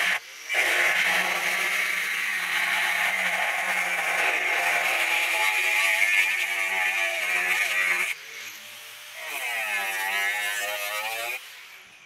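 Angle grinder with a cutting disc cutting through a clamped steel bar: a loud, steady grinding, briefly broken just after the start. About eight seconds in the disc leaves the metal and the grinder runs free more quietly, with a wavering whine, then winds down near the end.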